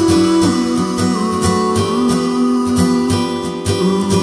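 Background music: an acoustic guitar track with a steady strummed rhythm.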